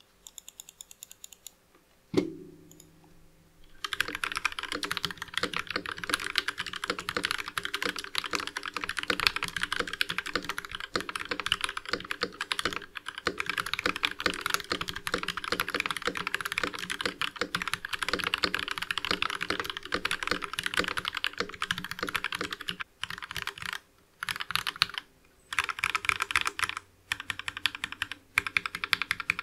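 Mechanical keyboard fitted with lubed Durock linear switches being typed on quickly in a sound test: a dense, continuous run of key clacks, which the reviewer calls more high-pitched than low-pitched. There are a few stray key presses and a single thump at first, then steady typing from about four seconds in, broken by short pauses near the end.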